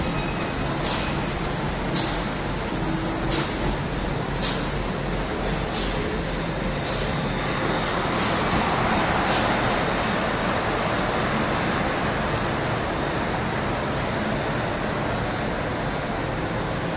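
A high-speed automatic heat shrink film wrapping machine running steadily. For the first nine seconds or so, a sharp hiss-like stroke comes about once a second with each machine cycle. After that a broader, steady rush of air takes over.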